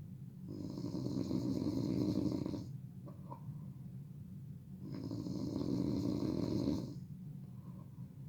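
A person snoring loudly in a slow rhythm: two long snores of about two seconds each, some four seconds apart, with quieter breathing between them.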